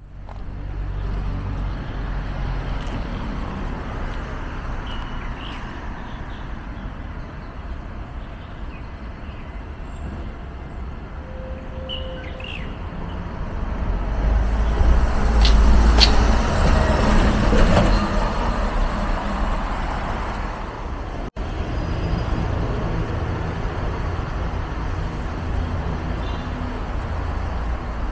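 City road traffic: steady engine and tyre rumble, with a louder, heavier vehicle passing about halfway through, swelling and then fading. A few brief high squeaks come through early on and again just before it passes.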